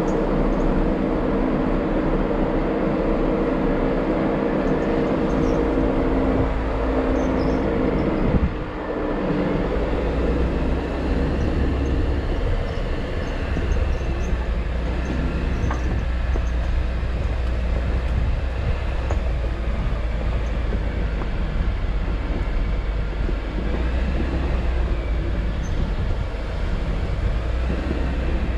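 Jeep Wrangler JL driving slowly along a dirt and rock off-road trail. The engine runs with a steady pitched drone for the first several seconds. It dips briefly about eight seconds in, then settles into a steady low rumble under the noise of the tyres on the dirt.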